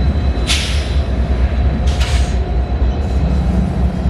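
Mixed freight train rolling past: a steady heavy low rumble of the cars on the rails, with two short hissing bursts about half a second and two seconds in.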